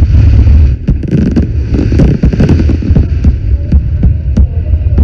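Fireworks going off: a loud, dense run of sharp cracks and pops over a continuous low rumble.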